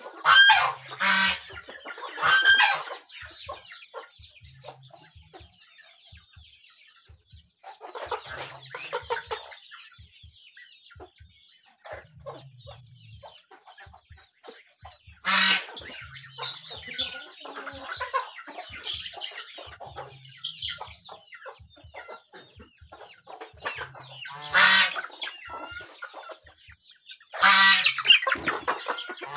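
A flock of chickens clucking while foraging, with a short loud call every few seconds over softer continuous chatter and light ticking, likely beaks pecking on the dirt.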